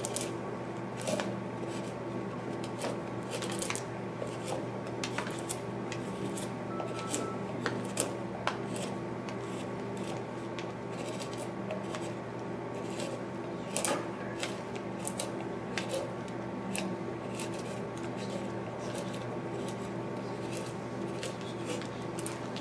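Hand gouge cutting into a white cedar block: a run of crisp, irregular snicks as chips are pared away, over a steady low hum.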